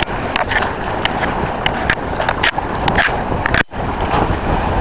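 Strong wind blowing across the microphone aboard a small yacht under sail, with the wash of water along the hull and scattered sharp clicks and rattles. The sound cuts out for an instant about three quarters of the way through.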